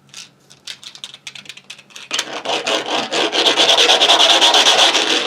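Plastic fidget roller toy being rolled: a rasping run of rapid clicks, sparse at first, then dense and loud from about two seconds in.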